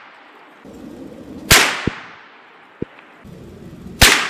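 Two rifle shots from a scoped .350 Legend bolt-action rifle firing 145-grain full metal jacket rounds, about two and a half seconds apart, each a sharp crack that dies away over about a second. Lighter clicks come between the shots.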